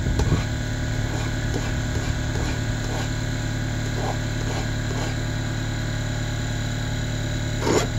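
Steady mechanical hum, with a few light scrapes of a hand file on the steel rail of a chainsaw bar, and two louder scrapes near the end.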